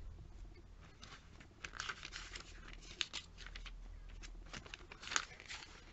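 Pages of a glossy printed catalogue being flipped by hand: faint paper rustles and flicks, with a sharper snap about three seconds in and another about five seconds in.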